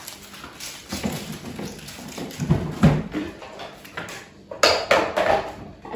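Light knocks and plastic clatter as a plastic salad spinner is handled and its lid lifted off: scattered taps, with a cluster of sharper clicks near the end.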